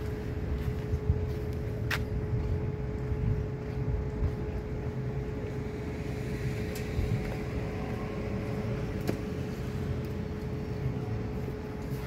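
Steady low outdoor rumble with a constant hum running under it, and one sharp click about two seconds in.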